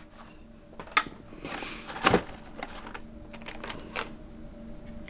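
Hot Wheels cars in plastic blister packs on cardboard cards being handled and pulled from their shipping case: a few light clicks and rustling of plastic and card, with the sharpest knock about two seconds in.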